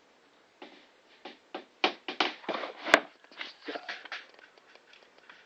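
Irregular rustling and knocking as things are handled and moved about, with one sharp, very short snap about three seconds in, the loudest sound.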